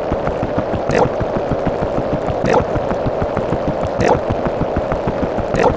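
A dense, noisy jumble of overlapping sound effects, with a short accent recurring about every second and a half.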